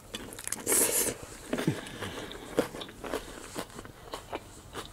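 A person biting into a crisp romaine lettuce taco, a loud crunch just under a second in, then close-up chewing with many small crunches and clicks.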